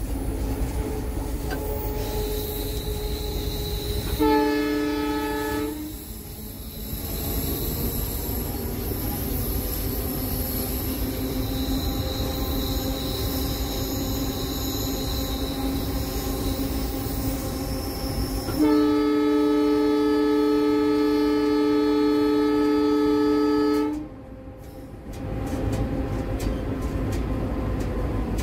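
Air horn of an EMD GT46PAC (WDP4) diesel-electric locomotive, heard from inside the cab: a short blast about four seconds in, then a loud blast held about five seconds near the end. Between the blasts there is the steady rumble of the locomotive running at speed.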